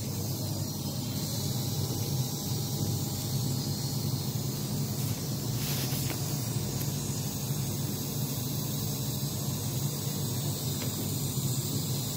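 Steady low hum with a faint hiss over it, unchanging throughout, and a faint click about six seconds in.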